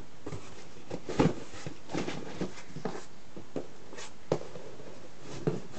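Hands rummaging in a cardboard box: cardboard flaps and boxed items rustling and scraping, with scattered knocks, the loudest about a second in and just after four seconds.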